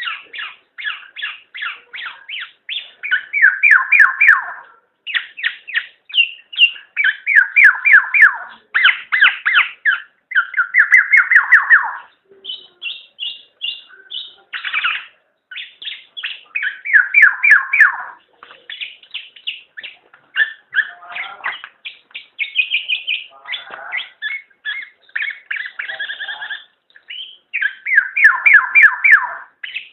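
Black-naped oriole calling: rapid runs of short repeated notes in bursts a second or two long, some of them harsher and denser, separated by brief pauses.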